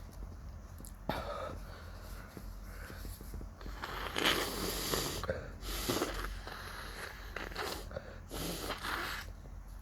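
A person with an itchy nose sniffling and breathing hard through the nose in several noisy gusts, the longest and loudest about four seconds in.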